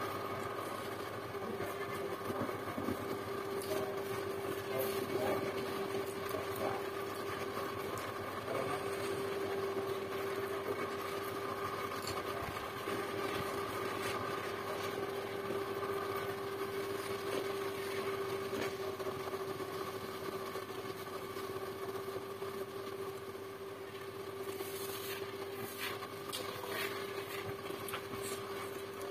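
A steady machine hum holding one constant tone, with faint clicks and smacks of eating by hand over it, bunched together near the end.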